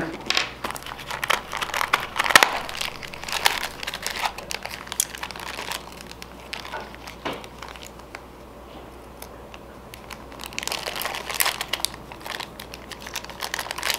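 Crinkling of a small clear plastic bag being handled and pulled open by hand, in irregular crackles, busiest in the first six seconds and again around eleven seconds in, quieter in between.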